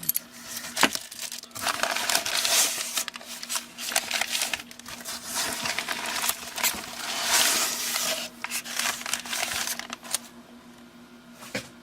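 Plastic packaging crinkling and rustling as a bicycle hub and freehub are handled and unwrapped, with scattered sharp clicks; it dies down near the end.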